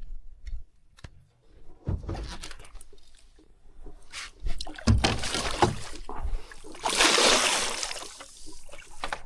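Water splashing and sloshing in irregular bursts, the loudest a few seconds from the end, as a hooked wild carp thrashes at the surface while being drawn in.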